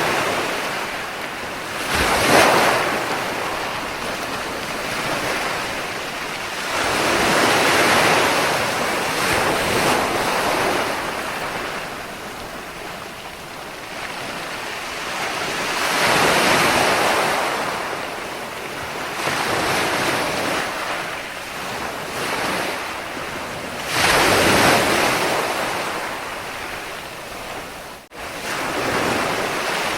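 Ocean waves breaking on the shore, the surf rising into a loud surge roughly every eight seconds and easing off between. A brief drop-out cuts the sound for an instant near the end.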